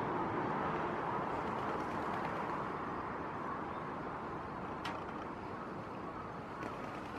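Steady rush of shallow stream water flowing over rocks, with one brief click about five seconds in.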